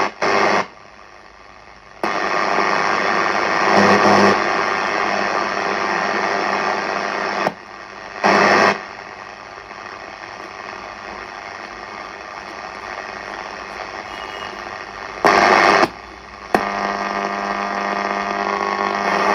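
Restored PYE four-band transistor radio giving out static and hiss with no station clear. The noise changes level and character several times, with a few short louder bursts and faint steady whistles near the end.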